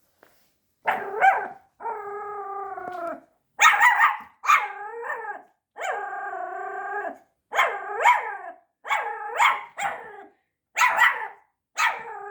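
Pomeranian puppy barking in a run of about ten calls, some short and sharp, others drawn out into held, howling notes over a second long. It is fearful barking at a toy tiger that frightens it.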